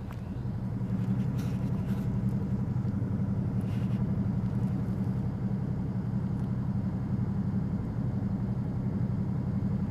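Suzuki V-Strom DL650's 645 cc V-twin engine idling steadily at a standstill.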